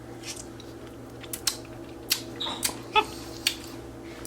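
Scattered short clicks and soft wet squelches as a capuchin monkey handles and eats a squashed tomatillo.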